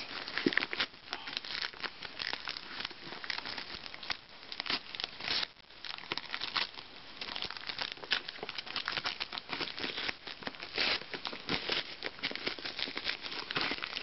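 A white plastic mailing bag crinkling and tearing as hands pull it open: a dense run of irregular crackles, with a short lull about five and a half seconds in.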